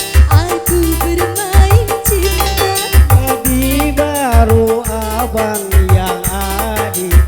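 Dangdut music from an orgen tunggal keyboard setup: a steady thumping bass-drum and bass beat under a melody line that slides and bends in pitch.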